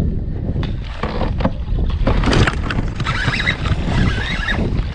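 Water splashing and sloshing against a kayak, with scattered short knocks.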